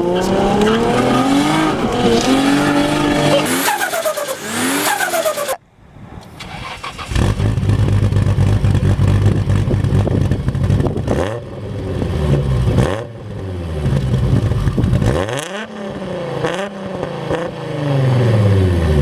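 Single-turbo Nissan Skyline R32 GT-R's RB26 straight-six engine accelerating hard, its pitch climbing and dropping repeatedly as it revs and shifts. The sound breaks off about five and a half seconds in, then picks up again with further pulls and a falling pitch near the end as the engine comes off the throttle.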